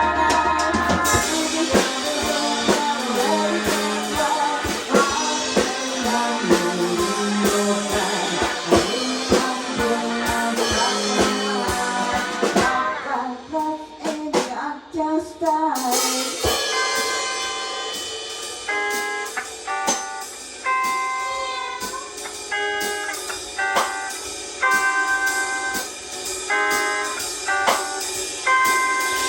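Live band rehearsal: drum kit and electric guitars playing a swung rockabilly groove. About halfway the drums thin out for a few seconds, then an electric guitar plays held lead notes over the drums.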